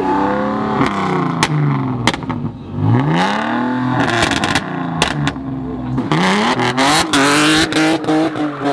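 Car engine revving hard during a spin: the revs sweep up and fall back several times, then are held high near the end, with tyres screeching and several sharp cracks.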